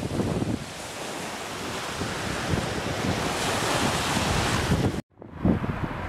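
Small waves breaking and washing up on the shore, with wind buffeting the microphone. The sound cuts off abruptly about five seconds in and is followed by quieter wind.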